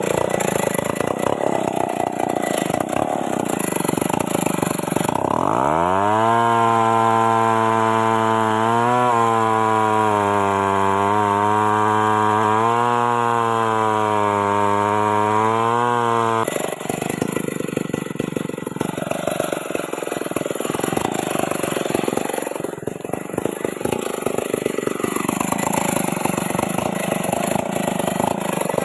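Stihl MS 381 two-stroke chainsaw. It runs roughly at low revs, then about five seconds in it revs up to a high, steady full-throttle note, with a few small dips in pitch, typical of the chain cutting into the mahogany. After about ten seconds the throttle drops back abruptly to rough, uneven running.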